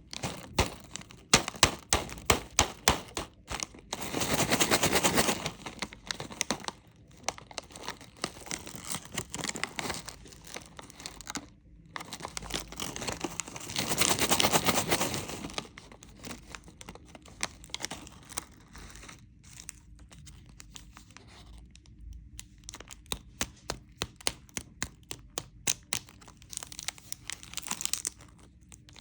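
Candy wrappers being handled, crinkling and crackling, with two longer tearing sounds about four seconds in and again around fourteen seconds in.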